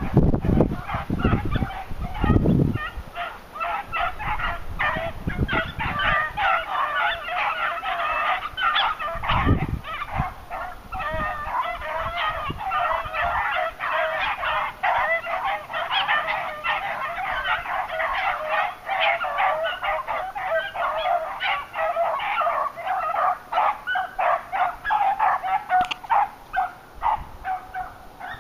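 A pack of beagles in full cry, many voices baying and bawling over one another without a break, as hounds do when running a rabbit's track. A few low thumps come in the first few seconds and again about ten seconds in.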